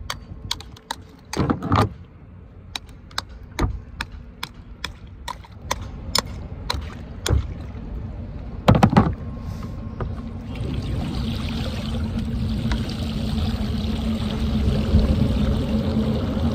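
Sharp, irregular clicks and a couple of heavier knocks as things are scraped and knocked off a concrete floodgate wall by hand from a kayak. From about ten seconds in, a steady rush of water as a bucket is dipped and filled over the side.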